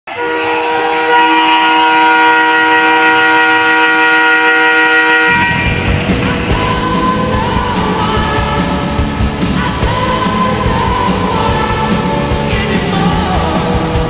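Arena goal horn blasting a steady multi-note chord for about five seconds, then the goal song takes over: loud music with a steady beat.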